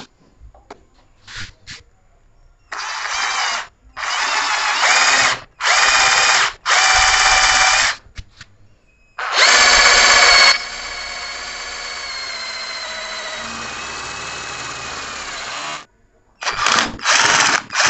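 Black & Decker 12-volt cordless drill/driver drilling into a square iron tube held in a vise: the motor runs in four short bursts of about a second each as the trigger is squeezed and released. Then it runs once for about six seconds, loud at first and then as a steady, quieter whine until it stops, when the hole goes through.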